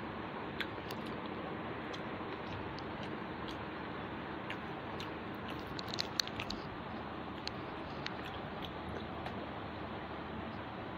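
Mouth sounds of a person eating rice and chicken curry by hand: chewing with small wet clicks, over a steady background hiss, with a brief cluster of sharper clicks about six seconds in.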